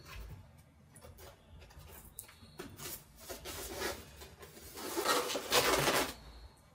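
Polystyrene foam packing block being handled and set down on a table, making rubbing and scraping noises. The loudest scraping comes for about a second near the end, after a quieter stretch of rubbing in the middle.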